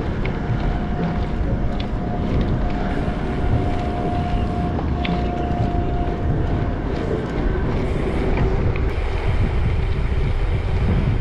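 Wind rushing over the microphone of a camera on a moving gravel bike, with a faint steady tone holding for the first several seconds and a few light ticks.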